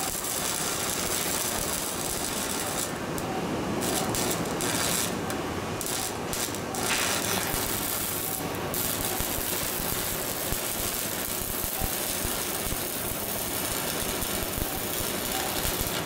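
Shielded metal arc (stick) welding arc crackling and hissing steadily as a vertical bead is run up a steel plate.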